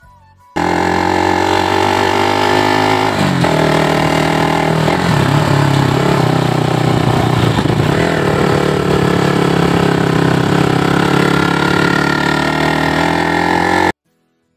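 Sport motorcycle's engine running under way. The engine note drops about three seconds in, then holds steady. It cuts in abruptly just after the start and cuts off abruptly about a second before the end.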